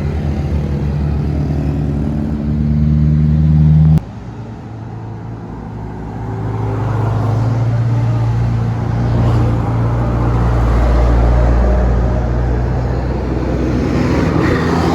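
Heavy diesel bus engine pulling hard, its pitch rising and getting louder, then cut off abruptly about four seconds in. A deep bus engine rumble follows, swelling as the bus passes close.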